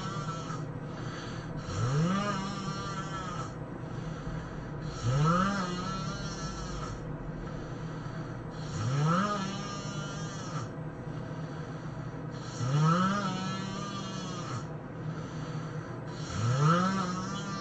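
A person snoring heavily: five long snores about three and a half to four seconds apart, each opening with a tone that slides up in pitch and then holds, with a hissing breath over it.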